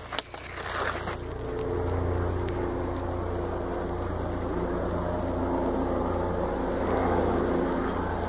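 Burning palm and leaf litter crackling for about the first second, then a steady helicopter engine drone overhead that holds at an even level.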